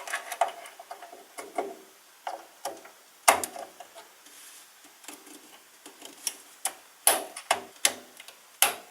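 Irregular sharp clicks and light knocks of hard plastic as DDR4 memory sticks are handled and pressed into motherboard slots, the slot latches snapping shut. One strong click about three seconds in, then a quicker run of clicks toward the end.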